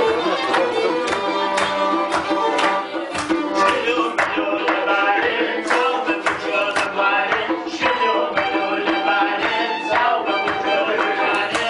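Live folk music: accordion and bowed fiddle over a steady hand-drum beat, with a group of men singing along.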